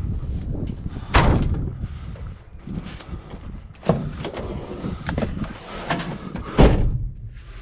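A scrapped dishwasher being loaded into a van: a run of metal clunks and knocks, with two loud slams about a second in and near the end.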